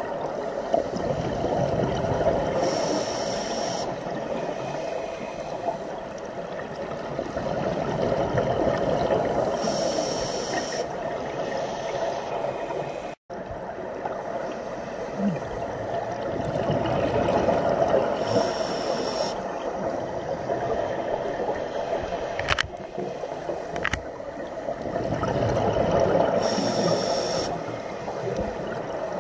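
Scuba regulator breathing heard through an underwater camera housing: a hiss of inhaled air roughly every eight seconds, with gurgling exhaled bubbles in between. The sound cuts out for an instant about halfway through, and two sharp clicks come near the end.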